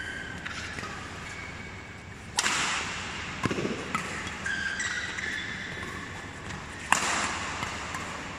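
Badminton doubles rally: sharp racket strikes on the shuttlecock, the two loudest about four and a half seconds apart with lighter hits between, and shoes squeaking briefly on the court mat.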